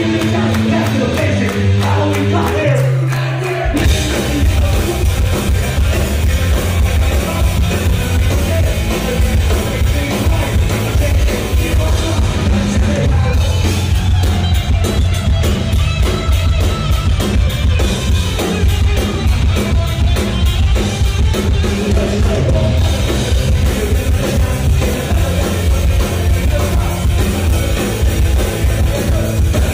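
Live punk rock band playing, heard from the crowd. It opens with held, sparser notes, then about four seconds in the full band crashes in loud with fast drums, and a singer's voice runs over it.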